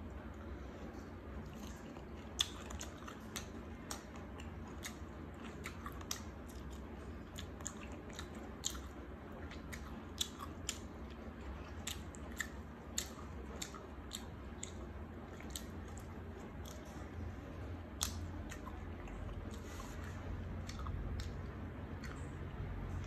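A person chewing food close to the microphone: irregular wet mouth clicks and crunches, a few sharper ones among them, over a steady low hum.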